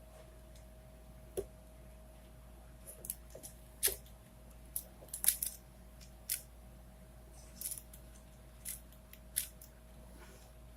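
Plastic 4x4x4 Rubik's cube (Rubik's Revenge) being turned by hand: irregular, sharp clicks and clacks as its layers are twisted, about fifteen in ten seconds.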